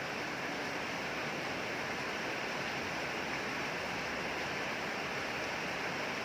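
Steady rain falling, an even hiss without separate drops standing out.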